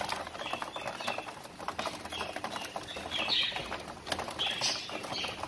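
A flock of budgerigars feeding and moving about: wings flapping, a steady scatter of small pecking and scratching clicks, and short chirps several times.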